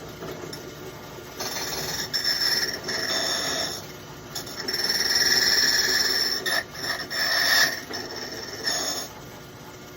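Key duplicating machine's cutter wheel cutting a metal key blank in several passes of a second or two each, starting about a second and a half in. Each time the cutter bites there is a high, ringing metallic screech over the steady run of the machine's motor.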